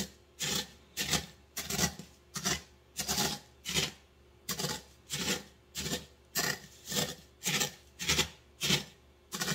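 Cornflakes being crushed on a ceramic plate under the bottom of a heavy glass cup: a short, dry crunch about twice a second, repeated evenly.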